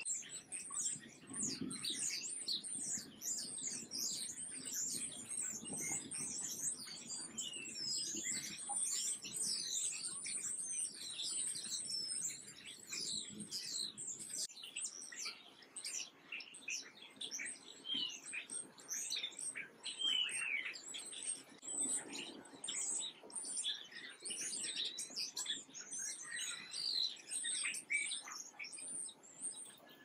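Many small songbirds chirping at once: a dense, continuous chatter of short, high chirps, many of them falling in pitch.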